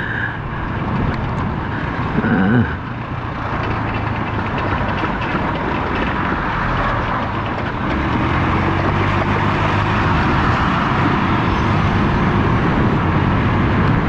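Honda motor scooter ridden through traffic: its engine runs under wind and road noise, with trucks alongside. About eight seconds in the noise grows louder and steadier, with a low drone.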